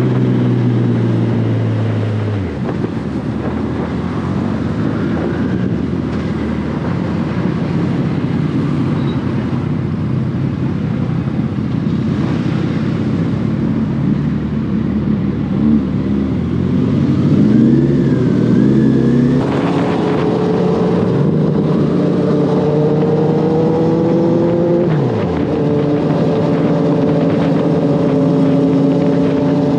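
Motorcycle engine heard from the rider's seat, under way on the road. It drops off as the bike slows in traffic about two seconds in, then pulls up through the gears past the halfway mark, with two short dips at the gear changes.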